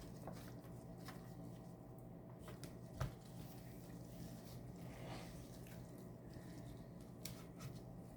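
Faint kitchen handling noises, light clicks and taps, with one sharper knock about three seconds in, over a steady low electrical hum.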